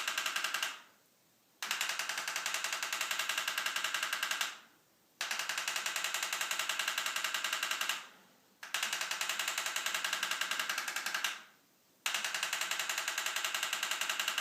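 Brimhall chiropractic adjusting instrument firing a rapid series of clicking impulses into the neck, in runs of about three seconds with short pauses between. It is lightly adjusting misaligned vertebrae back into place.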